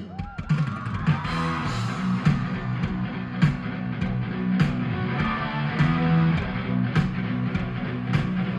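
Live rock band sound-checking through the stage PA: distorted electric guitar and bass over regular drum hits.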